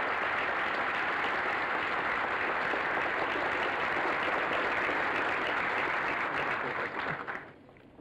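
A large audience applauding steadily; the applause dies away quickly about seven seconds in.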